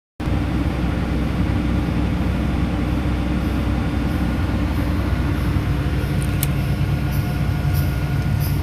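An engine running steadily at an unchanging speed, with a low, even hum and a few faint clicks near the end.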